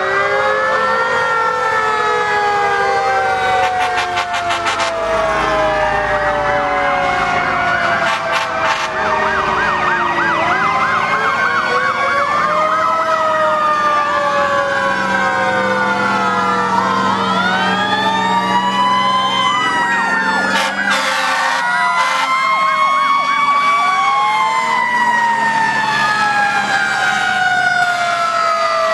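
Several fire-engine sirens sounding at once: overlapping wails that slide slowly up and down in pitch, with quick yelping passages now and then.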